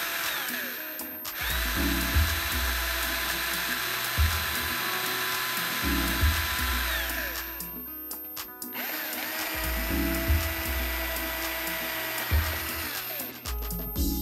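Power drill boring a hole in a golf cart's body panel, running in three bursts that spin up and wind down: a short one ending within the first second, a long one of about six seconds, and another of about four seconds later on. Background music with a bass beat plays underneath.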